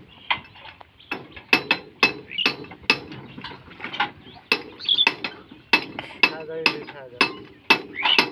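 Irregular sharp metallic knocks and clinks, roughly one to two a second, from a hand tool striking metal and hard soil at the wheel of a walk-behind power tiller whose engine is not running.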